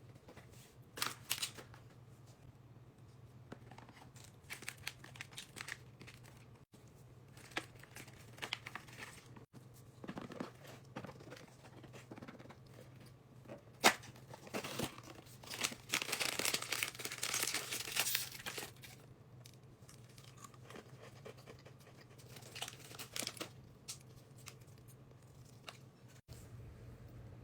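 Packaging being handled: intermittent crinkling and tearing of paper or plastic, with one sharp click about fourteen seconds in and a longer, louder tearing stretch a couple of seconds after it, over a faint steady low hum.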